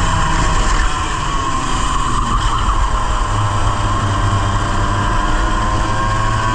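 Onboard sound of a 100cc two-stroke racing kart engine running under way: its pitch sinks over the first few seconds, then climbs slowly and steadily. In this race the engine was losing revs and power through corners, which the driver puts down to a fault on the kart.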